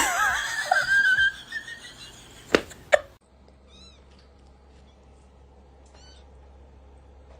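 A cat's drawn-out, wavering meow for about the first second and a half, then two sharp knocks. After that a faint steady hum, with a couple of faint short high chirps.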